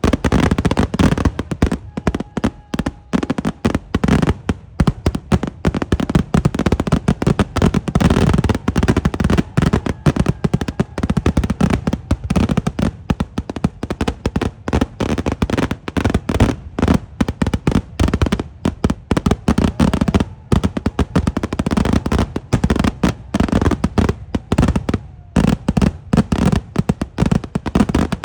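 Kerala temple-festival fireworks (eeduvedi): an unbroken barrage of explosions, several loud booms and cracks a second, each running into the next.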